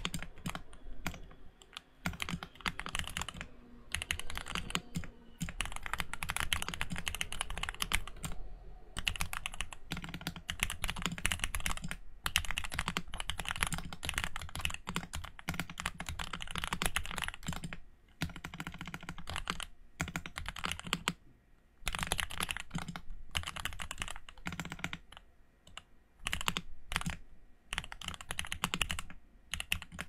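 Typing on a custom Bakeneko mechanical keyboard with GMK Red Samurai keycaps over JWK JWICK Yellow Pro switches, modded with PE foam and tape: rapid runs of keystroke clacks broken by short pauses.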